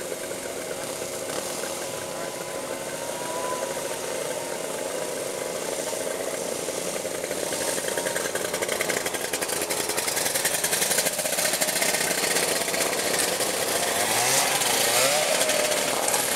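Several small engines of ATVs and vintage snowmobiles running and idling, with a couple of revs, getting louder toward the end.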